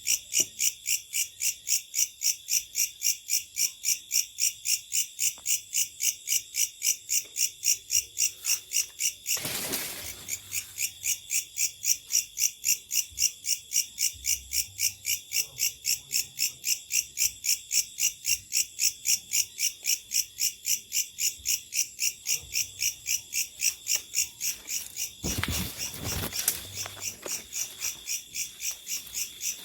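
Night-singing insect chorus: a loud, high-pitched chirping pulse repeating evenly about three times a second. Twice a short rush of noise, about a second long, passes over it.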